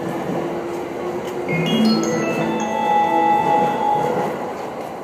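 Electronic chime melody from a railway station's platform speakers over the hubbub of the platform. A quick rising run of notes comes about two seconds in, followed by several held bell-like tones.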